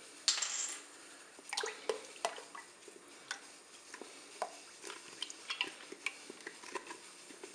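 Liquid cream poured from a small carton into a pot of milk: a thin stream trickling and dripping into the liquid, heard as scattered small ticks and splashes after a brief rush of noise near the start.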